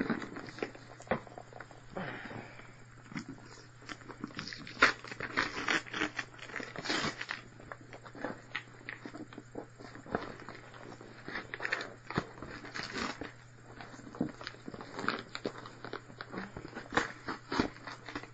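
A mailed package being pulled and torn at by hand, its wrapping crinkling, crackling and tearing in irregular bursts.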